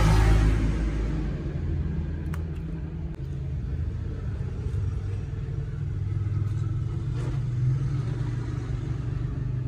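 A steady low engine rumble, like a running vehicle, with a brief hiss right at the start and a couple of faint clicks.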